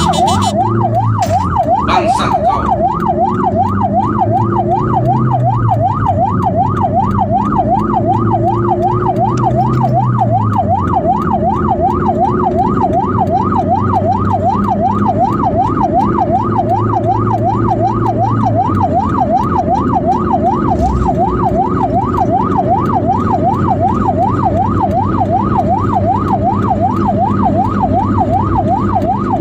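Ambulance siren sounding continuously in a fast yelp, a rapid repeated up-and-down sweep, over the low rumble of a vehicle's engine.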